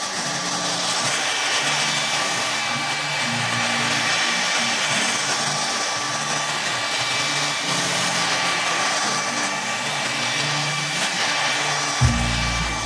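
Conair 1875 hair dryer blowing steadily, a rush of air with a thin steady whine, drying a freshly applied tattoo stencil on the skin. Near the end, music comes in with a thump.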